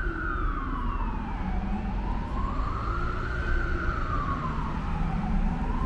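Emergency vehicle siren wailing, rising and falling slowly in pitch, about one cycle every three and a half seconds, over a low rumble of street traffic.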